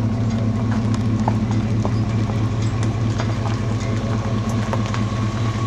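Tow vehicle's engine idling: a steady low hum with a fast flutter, and scattered light clicks over it.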